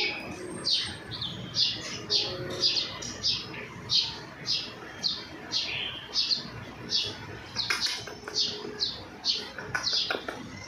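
A rapid, regular series of short, high-pitched chirps, each falling in pitch, about two to three a second without a break. A brief click or knock sounds near the end.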